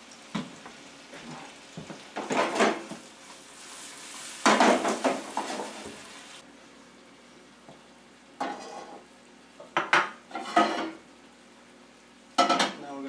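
Pans and utensils clattering and scraping on a gas stove in about six separate bursts, the loudest about halfway through, over the soft sizzle of vegetables cooking in a butter and honey glaze in a nonstick frying pan; the sizzle stops about six seconds in.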